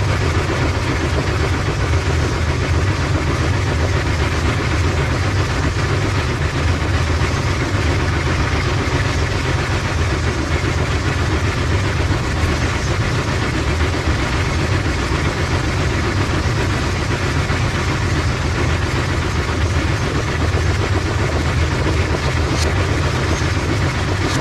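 Bowling-alley pinsetter machinery running steadily behind the lanes: a continuous, loud mechanical din with a strong low hum and no distinct pin crashes.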